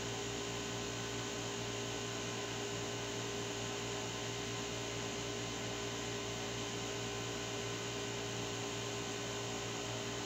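Steady, unchanging hum with a faint hiss underneath; no distinct events.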